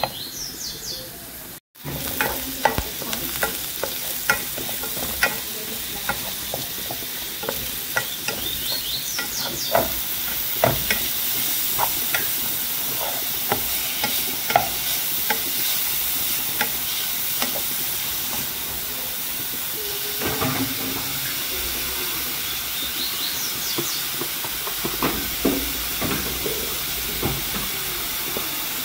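Grated garlic and carrot sizzling in margarine in a pot, with a spoon stirring and scraping the pan bottom in frequent short strokes. The sound cuts out briefly near the start.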